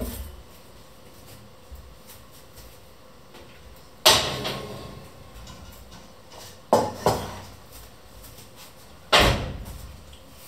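Kitchen clatter: five sharp knocks as things are handled and set down on the counter, each with a short ringing tail, the loudest about four and nine seconds in.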